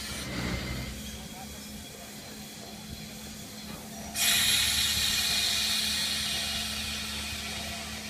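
Steam locomotive moving slowly; about four seconds in, a sudden loud hiss of steam blowing from its cylinder drain cocks starts and slowly fades.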